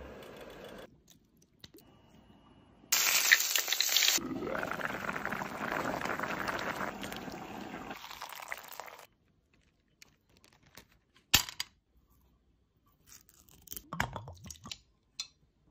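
Liquid poured into a pan, a noisy rush lasting about six seconds. Then one sharp click and, near the end, a few small clinks of cubes dropped into a glass.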